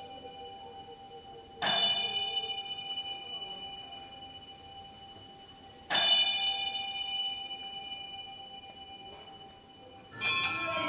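A bell on a large prayer wheel struck twice, about four seconds apart, each strike ringing out with several clear tones that fade slowly as the wheel turns. Just before the end a busier run of bell rings begins.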